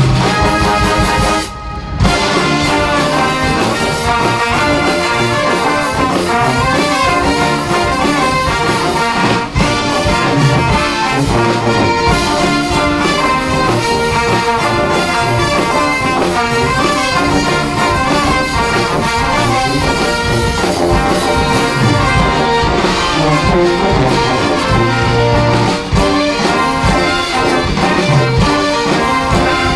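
Military band's horn section, trumpets, trombones and saxophones, playing an upbeat brass arrangement of a pop song over a drum kit, with a brief break about a second and a half in.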